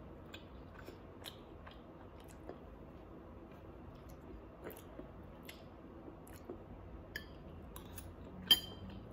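Faint chewing as someone eats a mouthful of chicken, rice and pineapple, with scattered soft clicks of a fork against a bowl and one sharper click near the end.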